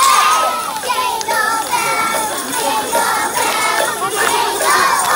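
A group of young children singing a Christmas song together, with jingle bells shaking along.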